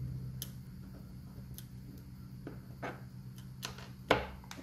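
Irregular light clicks and ticks of a small screwdriver and screws against a 3D-printed plastic case, about eight in all, with one sharper click about four seconds in.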